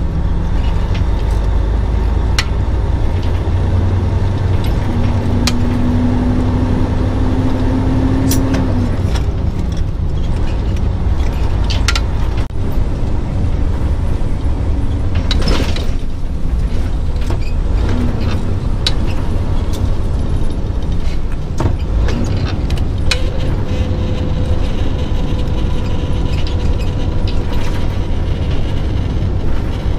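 Truck engine running, heard from inside the cab as a steady low drone, with frequent clicks and rattles. A brief tone rises slightly about five to nine seconds in.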